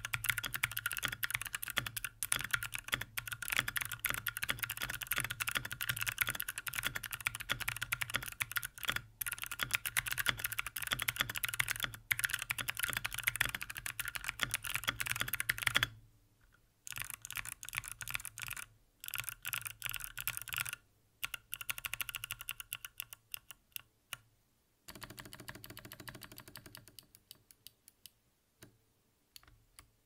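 Fast typing on a mechanical keyboard with Kailh Speed Pink click-bar clicky switches in an aluminium case and plate: a dense, even stream of crisp clicks. About halfway through the typing stops, and a few scattered groups of key presses and single clicks follow.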